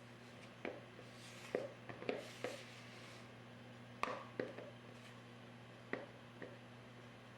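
Spatula scraping a thick cream cheese and sugar mixture down the sides of a mixing bowl: soft scrapes and light taps, a few a second early on, then sparser.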